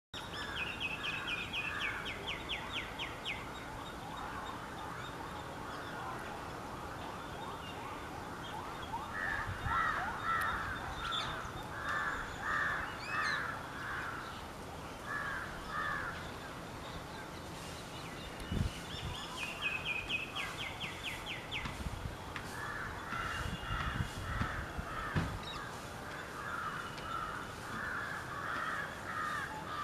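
Birds calling in the trees: runs of harsh, repeated calls, two or three a second, with a fast high trill twice. A few dull low thumps come about two-thirds of the way through.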